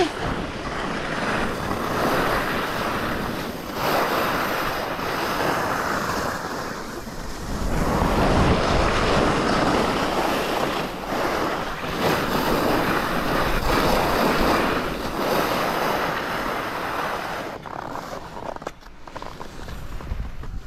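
Skis carving turns down a firm, scraped piste, the edges scraping and hissing over the snow in swells with each turn, mixed with wind rushing on the microphone. The sound dies down for a moment near the end.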